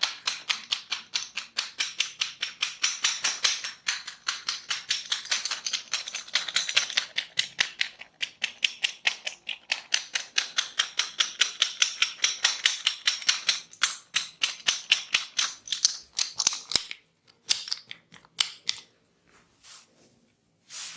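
Rapid, even hand strikes of a head massage, about five to six a second, breaking off about 17 seconds in into a few scattered taps.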